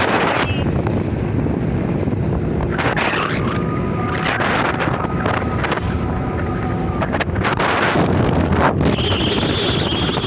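Wind buffeting the microphone over a steady rumble of vehicle and road noise. Two short pitched tones sound near the middle, and a higher tone starts near the end.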